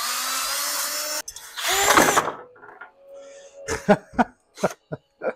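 Cordless drill spinning a stone cylinder hone inside a used 96 mm air-cooled Porsche cylinder jug: a steady motor whine over the grinding of the stones, which cuts off suddenly about a second in. A second short, loud burst follows about half a second later, then a few short voice-like sounds.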